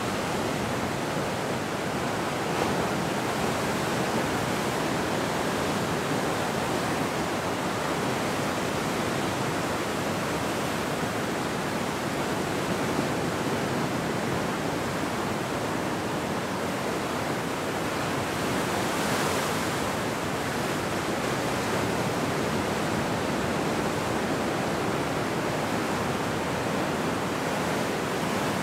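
Ocean surf breaking and washing in over the shore, a steady rushing wash with no separate crashes standing out.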